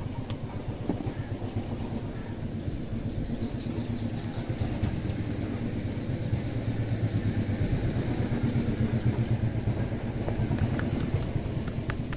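Hands rubbing and tapping fast on a person's head and hair during a head massage: a low, rhythmic rustling thud at several strokes a second.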